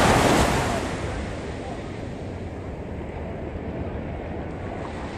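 Small ocean wave breaking on the sand, its rush of surf loudest at the start and fading over about a second, then the steady wash of low surf.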